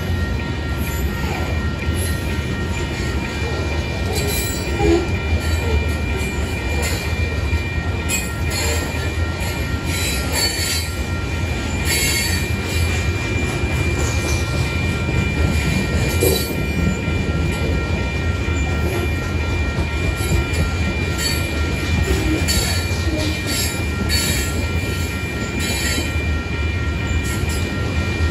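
Covered hopper cars of a freight train rolling past at steady speed: a continuous low rumble of wheels on rail, with thin steady high squealing tones from the wheels and scattered short clicks and clanks.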